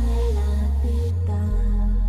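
Background music with heavy sustained bass notes.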